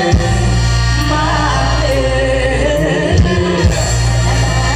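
Live lam sing band music from a Thai mor lam troupe, amplified through a concert PA: a singer's voice gliding over a heavy, steady bass line.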